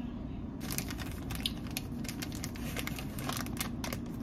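Crinkling and crackling of cheese-slice packaging as slices are peeled off and handled: a quick, irregular run of sharp crackles that starts about half a second in.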